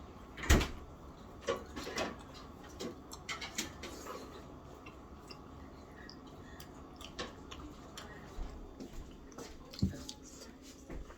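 Scattered clicks and knocks of eating at a table: dishes, utensils and food being handled, with one sharp knock about half a second in.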